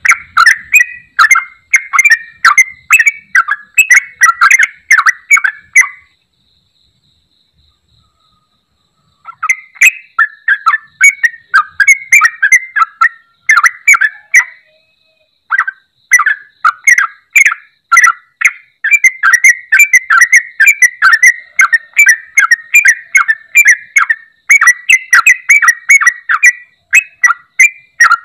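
Yellow-vented bulbul singing loud, rapid, bubbly phrases of short whistled notes, falling silent for about three seconds after about six seconds and pausing briefly again about halfway through.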